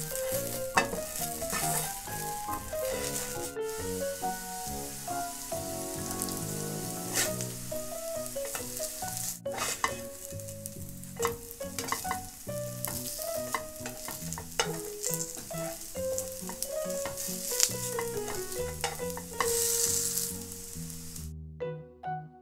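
Julienned potato frying in olive oil in a nonstick pan: a steady sizzle, with scrapes and taps from a slotted spatula as the strands are pushed around. The sizzle cuts off abruptly near the end.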